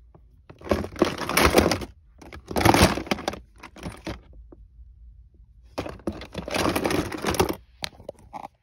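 Fidget toys and their packaging being rummaged through by hand: three bursts of rustling and clattering, the longest near the end.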